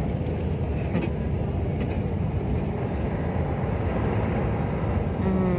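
Steady road and engine rumble of a moving vehicle heard from inside its cabin, mostly low in pitch and unbroken.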